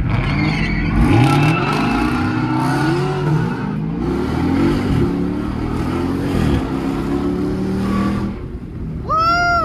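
Dodge Charger Scat Pack's 6.4-litre HEMI V8 with loud exhaust, heard from inside the cabin, accelerating hard through the gears: the engine note climbs and drops back several times at the upshifts.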